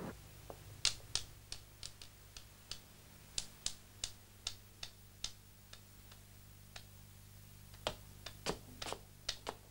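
Footsteps with hard soles on a hard floor, a sharp click about three times a second, thinning out briefly past the middle, over a faint steady hum.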